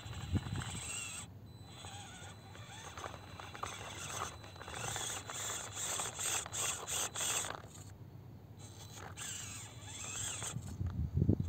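Absima CR-18 Pro Hunter 1/18-scale RC crawler's small electric motor and gearbox whining in two spells as it crawls up rock, with a scratchy rasp of tyres on stone. A few low thumps just before the end are the loudest sounds.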